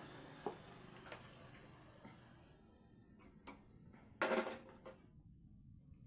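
Light clicks and taps of small tools and phone parts being handled, with one louder short clatter a little after four seconds in.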